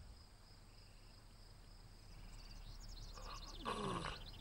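Faint woodland ambience: a steady high insect buzz with birds chirping. A quick run of bird chirps comes about halfway through, and a short lower falling sound comes near the end.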